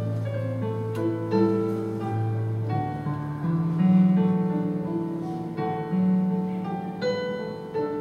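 Piano playing a slow hymn: sustained chords with a held bass note, new notes struck every half second or so, loudest about four seconds in.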